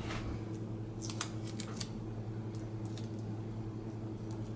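Adhesive tape being handled and pressed down over a laptop display cable connector: a quick run of sharp crackling clicks about a second in, then a few fainter ticks, over a steady low hum.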